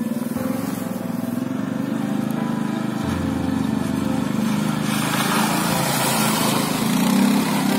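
Hisun Tactic 550 ATV's single-cylinder four-stroke engine running steadily as the quad comes closer, then a rushing splash from about five seconds in as its wheels plough through a muddy puddle.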